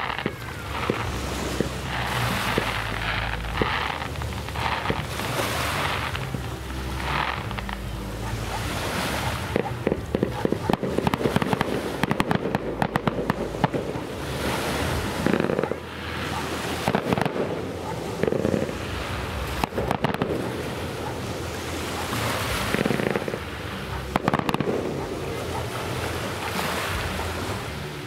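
Fireworks display: aerial shells bursting one after another with low booms, and a long run of rapid crackling about ten seconds in.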